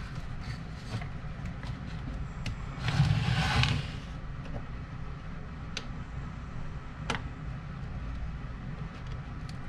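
A small screw being turned with a hand screwdriver into a cuckoo clock's thin wooden case: one scraping rasp about three seconds in lasting about a second, and a few light clicks. The screw is failing to bite in the wood.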